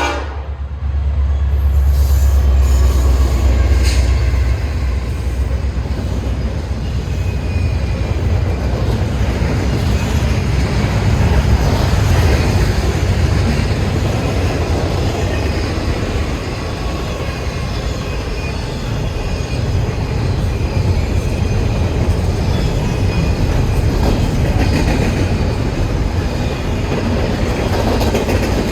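Freight train rolling past: a steady, loud low rumble of the wheels and cars on the rails, with faint high wheel squeals coming and going.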